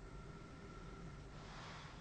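A sleeper breathing through a CPAP mask: one soft, airy breath swells up about one and a half seconds in, over a faint steady tone and low hum.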